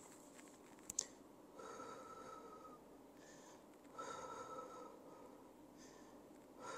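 A man breathing slowly and faintly while holding a deep stretch: three breaths about two and a half seconds apart, each with a slight whistle. A single sharp click about a second in.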